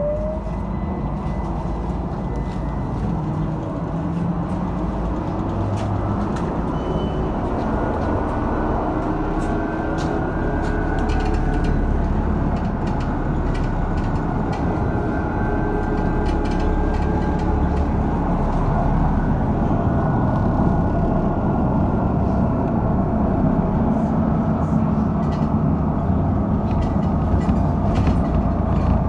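LAZ E301 trolleybus heard from inside the cabin as it pulls away and drives on: an electric motor whine rising in pitch at the very start, then a steady rumble of running gear and road noise that grows gradually louder as it gathers speed, with faint whining tones in between.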